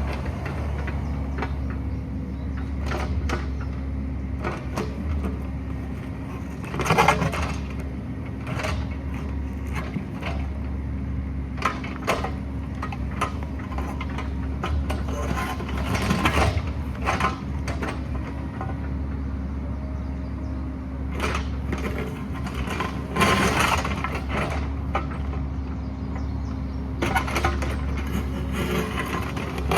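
Excavator's diesel engine running steadily under load, with the bucket scraping and clanking against rock and loose stones knocking, in heavier bursts every several seconds.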